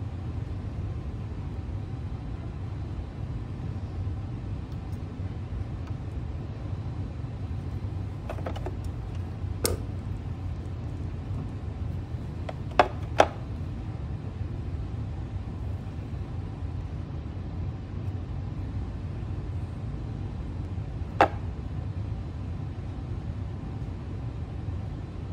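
A steady low background hum, with a few sharp clicks and knocks from sealed lead-acid scooter batteries being handled and lifted out of their plastic tray. One knock comes about ten seconds in, two come close together about halfway through, and one more comes near the end.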